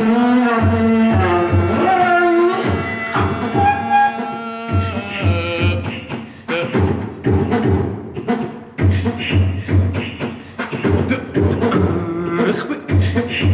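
Live-looped electronic music built from sampled voice: held, bending vocal tones layered over a repeating beat of low drum hits and clicky percussion, played through homemade transducer speakers made from frame drums, hi-hats and metal dishes.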